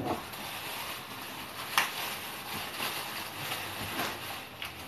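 Rummaging through a cardboard carton of groceries: rustling with a few light knocks, the sharpest about two seconds in.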